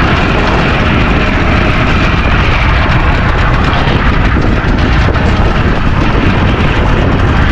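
Strong wind buffeting the microphone: a loud, steady rumbling noise, heaviest in the low end.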